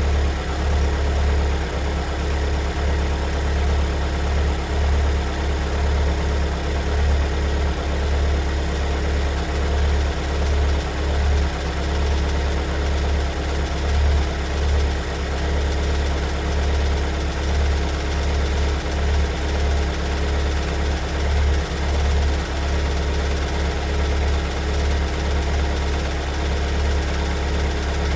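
Kia Sorento MQ4's 2.2-litre four-cylinder diesel engine idling, with a loud knocking that sets in about seven seconds in. The owner takes the knock for an engine fault that two weeks of dealer service did not fix.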